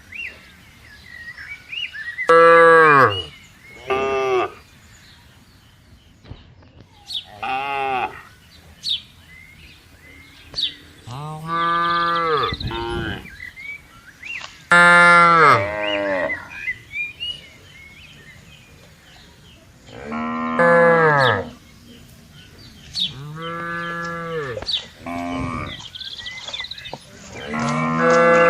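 A grazing herd of cows and buffaloes mooing, about nine separate calls from different animals, some short and some held for a second or two, several dropping in pitch as they end. Faint bird chirps can be heard between the calls.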